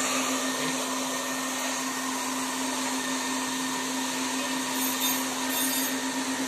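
DTF printer's vacuum bed suction fan running with a steady hum and hiss, drawing the film down flat onto the platen so it cannot curl up and hit the print head.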